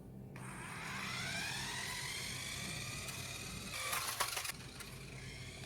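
Small electric motor of a 2.4 GHz remote-control toy car whining and rising in pitch as it speeds up. A short burst of clatter, the loudest part, comes near four seconds in, and the whine stops soon after.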